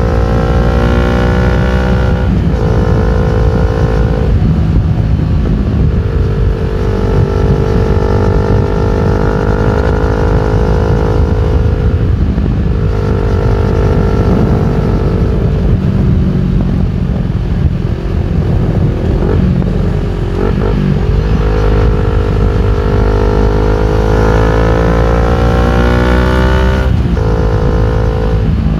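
CFMOTO NK400's parallel-twin engine breathing through an Akrapovic full exhaust system while riding, accelerating through the gears: the pitch climbs, then drops sharply at each upshift, several times. Between the pulls it runs at lower, steadier revs, under a constant rush of wind noise.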